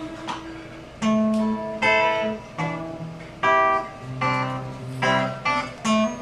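Acoustic guitar strumming chords, each struck and left to ring, about one a second: an instrumental passage between sung lines.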